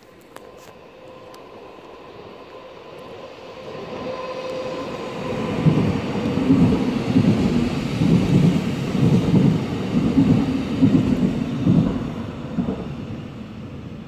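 Zentralbahn electric train passing through the station: it builds over several seconds and is loudest in the middle with a rhythmic low clatter, then fades near the end. A faint steady tone sounds during the approach.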